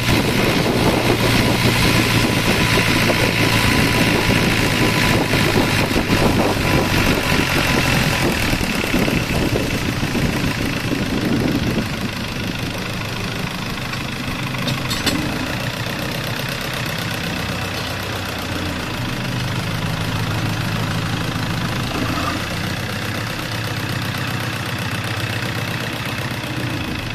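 Small boat's motor running steadily under way, with water rushing along the hull. About twelve seconds in the engine drops to a lower, quieter note, as if throttled back.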